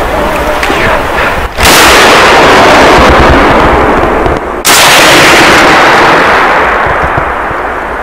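A faint wavering wail, then two sudden, very loud blasts about three seconds apart. Each overloads the recording and dies away slowly in a long noisy tail.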